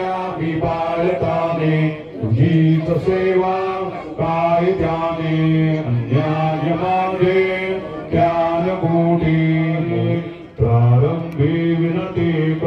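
A man chanting puja mantras in a sung, level-pitched recitation, in phrases of about four seconds with brief pauses between them.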